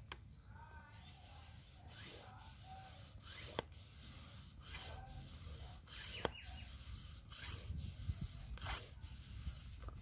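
Faint rubbing and handling noise from hands and a hand-held camera moving around rubber intake hoses, with a few light clicks over a low rumble.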